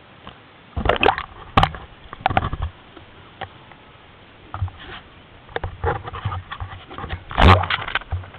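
Water splashing and sloshing right at the microphone as it dips under the surface and comes back up, in sudden bursts; the loudest is near the end.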